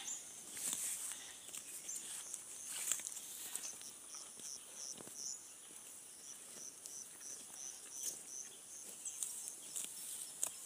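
A black-and-white dairy cow grazing, with the crisp tearing of grass as it crops mouthfuls at irregular intervals. Through the middle a small high chirp repeats about three times a second.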